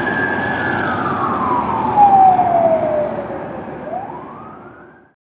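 Fire truck siren wailing as the truck pulls away: the tone is held high, slides slowly down over a few seconds, then climbs again near the end, getting fainter throughout.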